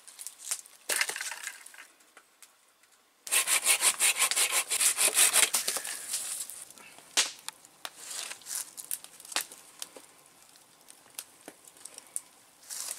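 Hand saw cutting through a wooden branch in a quick run of strokes starting about three seconds in and lasting a few seconds, with scattered knocks and clicks of wood being handled around it.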